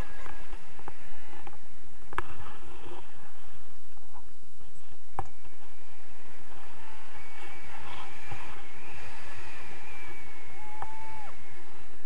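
Wind buffeting an action camera's microphone during a tandem paraglider flight: a steady low rumble, with a couple of sharp knocks about two and five seconds in.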